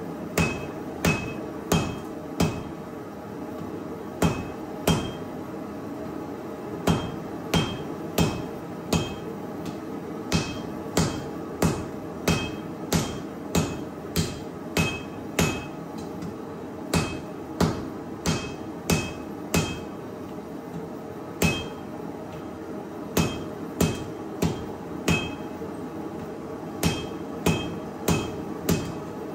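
Hand hammer striking a glowing steel knife billet on a small anvil while forge welding it: about forty sharp strikes, roughly one to two a second in runs of a few with short pauses, each with a brief high ring. A steady rush from the lit forge underneath.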